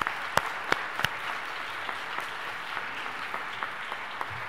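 Audience at dinner tables giving a round of applause: steady clapping from many hands, with a few louder, sharper claps close by in the first second.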